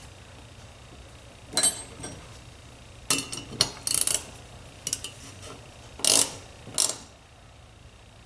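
Small ratcheting wrench clicking in several short bursts, beginning about a second and a half in, as it snugs the bottom plug and its gasket into the cast body of a Tillotson Model X carburetor.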